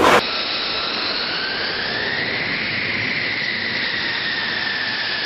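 Fighter jet engine running: a steady jet roar with a high whine that climbs slowly in pitch over the first couple of seconds, then settles a little lower.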